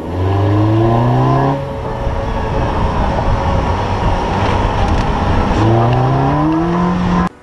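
Car driving along a road, its engine rising in pitch as it accelerates for about the first second and a half, then mostly tyre and wind noise, then the engine rising again near the end before the sound cuts off suddenly.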